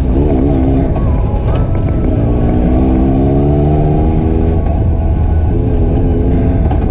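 ATV engine running while riding. Its pitch wobbles up and down near the start, then climbs steadily for a couple of seconds as it speeds up, and eases back lower.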